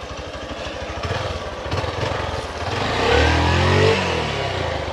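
Off-road motorcycle engine running at a steady, pulsing idle, then revved up and back down about three to four seconds in.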